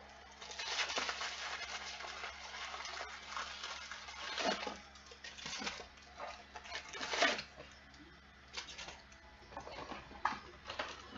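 Packaging rustling and crinkling as a box of trading cards is opened and its packs are handled. The noise is a dense rustle for the first few seconds, then comes in short crackly bursts.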